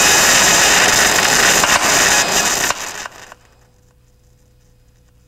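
Electrical arcing across saline-wetted, nicked Poly-X (BMS 13-42A) aircraft wire insulation on a 400 Hz supply: dense, loud crackling and rapid popping. It stops fairly abruptly about three seconds in, leaving a faint hum. The sound is the sign of wet arc tracking, where carbonised insulation conducts between the damaged wires.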